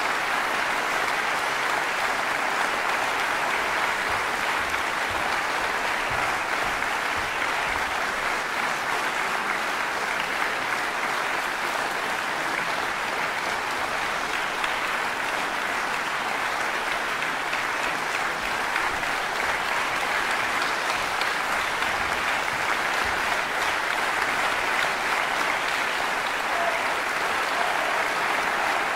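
Concert-hall audience applauding, a steady, unbroken ovation.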